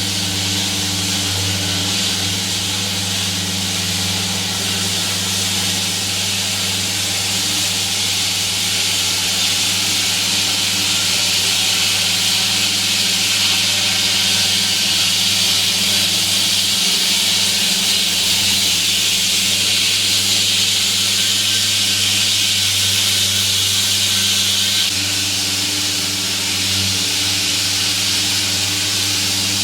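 Water-cooled diamond-blade concrete saw cutting the road: the saw's engine hums steadily under a loud hiss from the blade grinding through the pavement. The hiss swells through the middle and drops back suddenly near the end.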